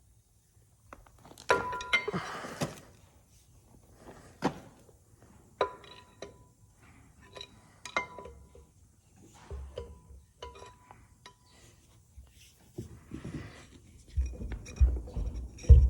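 Loose metal hand tools and bolts clinking and clanking as a bolt and a punch are picked out, each strike ringing briefly; a cluster of clinks about a second and a half in, then single clinks every second or two, and heavier thumps near the end.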